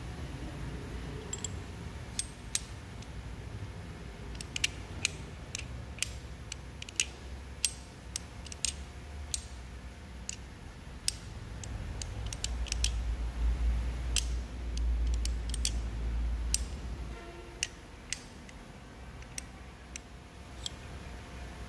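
Small steel gearbox parts handled and fitted together by hand: a machined motorcycle gearbox shaft with its sliding collar and helical gear giving scattered light metallic clicks and clinks as they are turned and slid on the splines. A low rumble comes in about twelve seconds in and fades a few seconds later.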